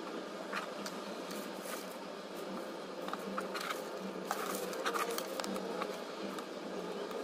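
Diamond-painting drill pen picking resin drills from a plastic tray and pressing them onto the adhesive canvas: scattered light clicks and taps, with some plastic rustling, over a steady low background hum.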